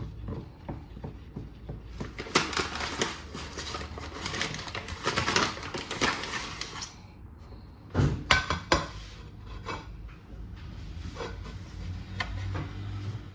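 Kitchenware clattering: pots, dishes and cutlery knocking and clinking, with a cluster of sharper knocks about eight seconds in.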